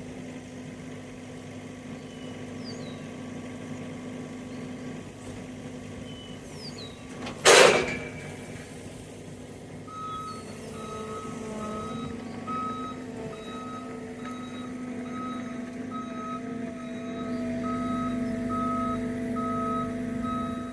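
A vehicle's engine running steadily, with a short loud hiss about a third of the way in. About halfway through a backup alarm starts beeping at an even pace, roughly three beeps every two seconds: the vehicle is reversing.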